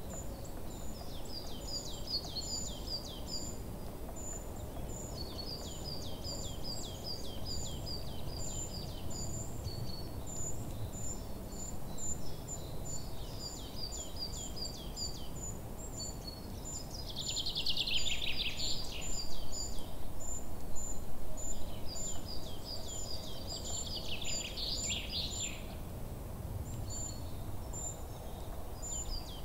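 Songbirds chirping in quick repeated series of high notes, with a louder falling trill twice in the second half, over steady low background noise.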